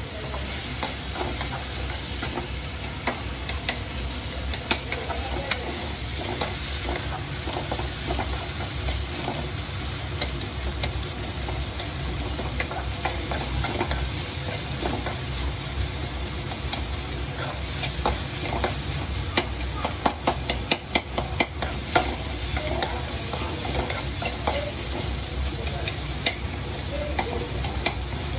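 Millet noodles being stirred in a hot oiled pan: a steady sizzle under frequent clicks and scrapes of a utensil against the pan, with a quick run of clicks about twenty seconds in.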